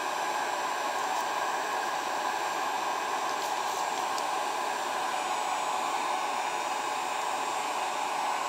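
Handheld electric heat gun blowing steadily, an even rush of air with a steady whirr from its fan.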